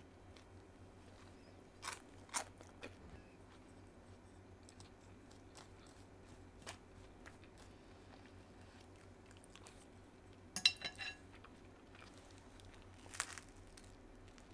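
A few short crunches and clicks over quiet room tone, the loudest cluster about ten and a half seconds in.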